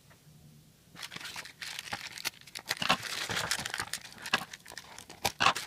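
A shiny foil blind-bag pack crinkling and crackling as hands handle it and open it. The crinkling starts about a second in and goes on in a dense, irregular run.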